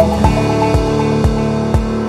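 Background music: upbeat corporate-style electronic track with a steady beat about twice a second under held synth chords.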